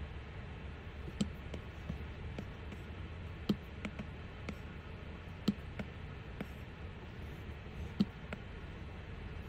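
Light taps of fingertips and an Apple Pencil on an iPad's glass screen: about a dozen short clicks at irregular intervals, a few of them louder, over a steady low hum.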